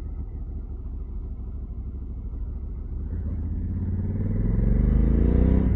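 Honda Africa Twin's parallel-twin engine running on the move, then accelerating from about three seconds in, its pitch and loudness rising.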